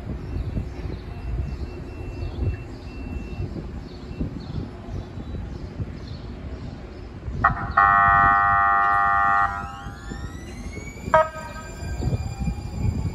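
A Siemens S70 light-rail trolley sounds its horn in one chord-like blast of about a second and a half over a low rumble. As the train starts to move, a rising electric whine from its traction motors follows, broken by a second short horn toot.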